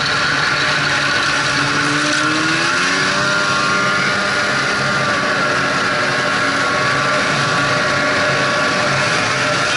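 Snowmobile engine running steadily while riding along a groomed trail, its pitch rising a little about two to three seconds in, over the rush of wind and track noise.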